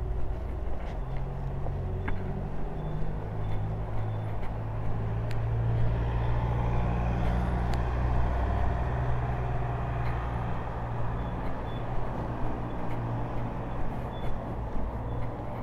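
Car engines running close by in slow street traffic: a steady low hum that is strongest in the middle and drops slightly in pitch about eight seconds in, over tyre and road noise.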